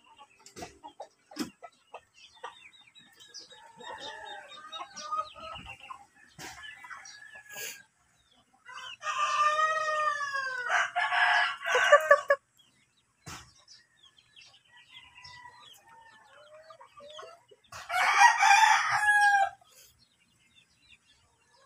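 A flock of chickens clucking softly, with a rooster crowing loudly about nine seconds in and another loud call a few seconds before the end.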